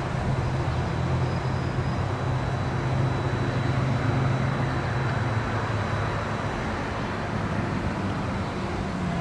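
Siemens Duewag U2A light rail train standing at a platform, giving off a steady low hum that is strongest in the first half and then eases off, over a steady rushing background.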